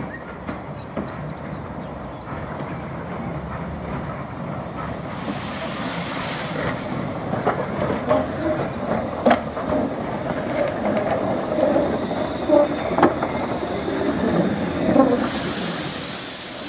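An 0-6-0 saddle tank steam locomotive running slowly past, growing louder as it nears. Two long hisses of steam, about five seconds in and near the end, and a few sharp knocks from its running gear and wheels on the track.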